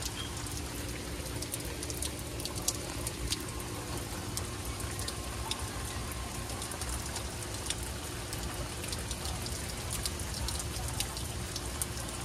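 Steady rain falling during a thunderstorm, a continuous hiss scattered with many sharp individual drop ticks and splashes.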